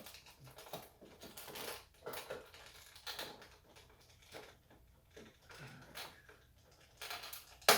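Scissors snipping through toy packaging, with plastic and cardboard crinkling as a figure is cut free: soft, irregular snips and rustles, and one sharp snap near the end.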